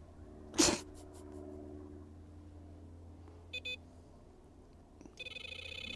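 Electronic bite alarm on a fishing rod bleeping: a short pair of blips past the middle, then a steady continuous tone near the end. A brief, louder rustle-like noise comes about half a second in.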